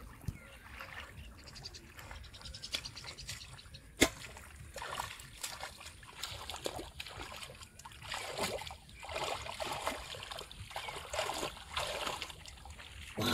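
Hands splashing and sloshing through shallow muddy pond water, groping in the mud for fish, in irregular bursts that grow busier after the first few seconds. A single sharp click about four seconds in.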